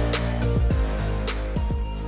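Background music with a beat: sustained tones over regular drum hits, slowly getting quieter.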